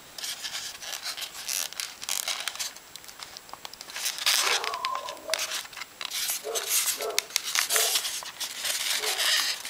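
Styrofoam packing insert and cardboard box being handled and slid apart: foam rubbing and scraping with short squeaks, and crinkling of a thin plastic sleeve.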